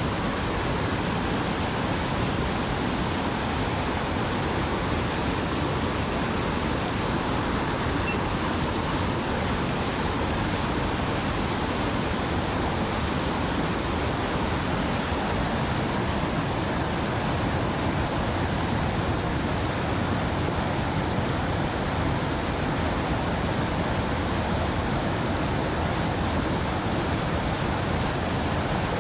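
Steady rushing of moving river water: a loud, even noise that does not change or break.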